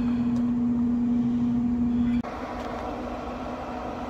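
Traeger pellet grill's fan running with a steady hum over a low rumble while the grill heats up. The hum cuts off sharply about two seconds in, leaving a quieter steady rumble with a faint hum.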